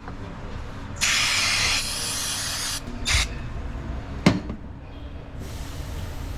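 Aerosol cleaner sprayed in one long burst of nearly two seconds, then a short second burst, while cleaning a Honda VTEC spool valve. A sharp click follows about four seconds in.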